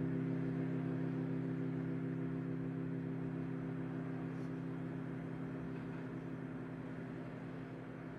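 Music: a low held chord of several steady notes, fading slowly.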